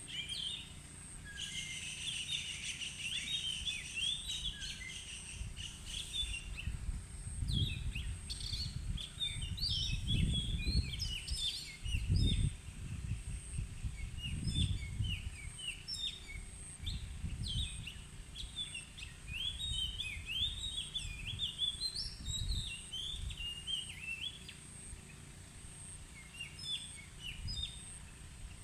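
Oriental magpie-robin singing a varied song of short whistled notes and chirps in quick, changing phrases. A steady thin high tone runs underneath, and low rumbles come between about 7 and 15 seconds in.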